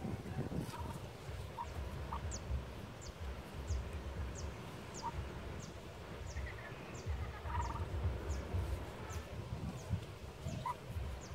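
Muscovy duck sitting on its nest gives a few short, soft calls, one a brief trill about seven seconds in. Behind it, a small bird gives a high falling chirp about every 0.7 s, over a low rumble on the microphone.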